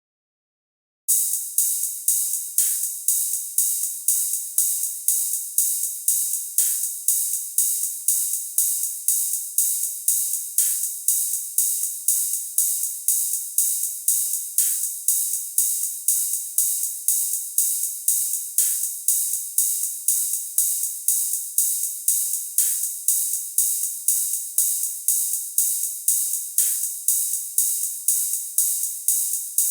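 Hi-hat cymbal struck in a steady repeating pattern, about two hits a second, starting about a second in, with one fuller hit that reaches lower every four seconds.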